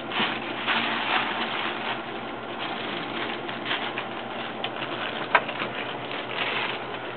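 Hard-shell tacos being chewed and crunched: irregular crackling crunches, with one sharp crack about five seconds in.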